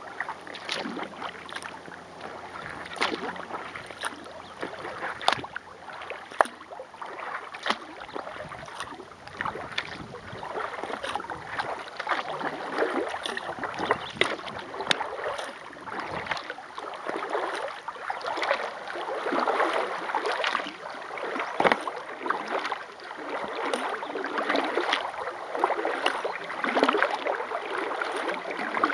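Kayak paddle strokes on calm water: the water swishes and splashes in repeated swells as the blades dip and pull, with many small sharp ticks of dripping or splashing water.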